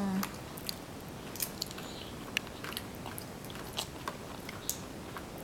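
A small child chewing and eating, with scattered short clicks.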